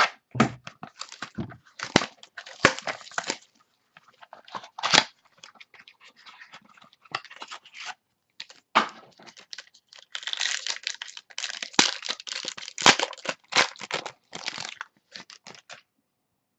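Card-pack foil wrappers tearing and crinkling, with cards and wrappers rustling and clicking as they are handled. Irregular crackles throughout, busiest about two-thirds of the way in.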